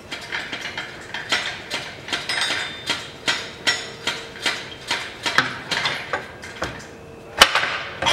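Hydraulic transmission jack being pumped up, its mechanism making a steady run of metallic clicks, about two or three a second, as the saddle rises to the subframe. One sharper metallic knock near the end.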